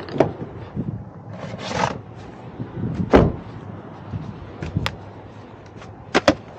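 Scattered knocks and clicks of things being handled, with a short rustle about a second and a half in and one louder thump about three seconds in.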